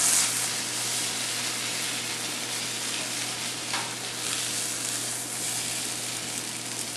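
Whiskey-glazed onions sizzling in a hot sauté pan as they are tipped and scraped out onto a pizza: a steady frying hiss that eases slightly toward the end.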